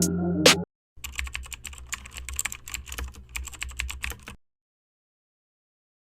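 Rapid keyboard-typing clicks for about three seconds, stopping abruptly. It is just after the end of a short, louder music sting.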